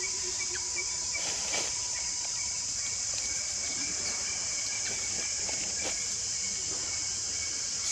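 Insects droning steadily in a high pitch, with a few faint soft clicks and rustles over it.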